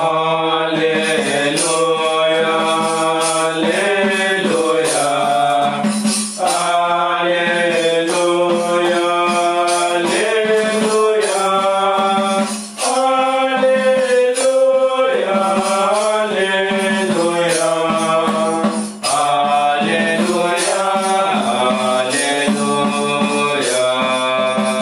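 Sung church music with instrumental accompaniment, a slow chant-like melody carried steadily, with short breaks between phrases about 6, 13 and 19 seconds in.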